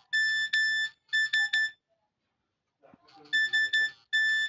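A Nokia 309 ringtone: a high electronic trill in short bursts, two bursts close together, a pause of about a second and a half, then the pair again.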